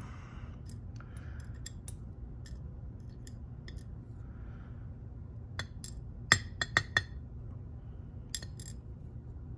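Small metallic clicks and clinks of a disassembled ASSA Twin lock and metal tools being handled, with a quick run of sharper clicks about six to seven seconds in.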